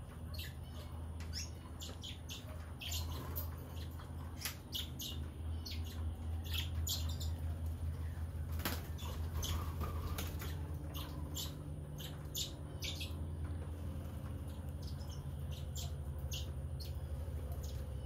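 Small aviary birds, Gouldian finches and rosy Bourke's parrots, chirping: many short, high calls over a steady low hum.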